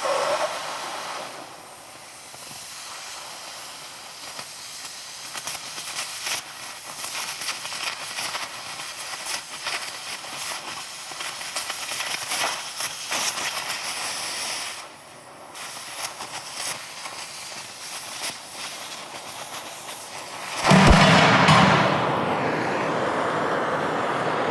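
Oxyacetylene cutting torch running on its cutting oxygen jet as it cuts through steel: a steady hiss with a dense crackle of sparks and molten slag blowing out of the cut. About three seconds before the end, the sound suddenly jumps to a louder, steadier rush.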